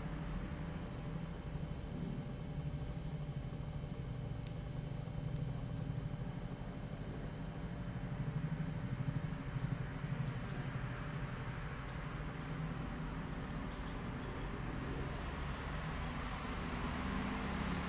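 Siberian chipmunk nibbling a nut held in its paws, a rapid fine gnawing that swells briefly about halfway through. Short groups of high-pitched chirps and a few thin falling calls sound above it.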